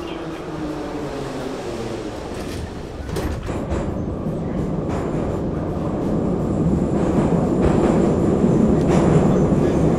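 Metro train heard from inside the carriage: a steady rumble and rattle, with a few faint clicks, growing louder from about three seconds in.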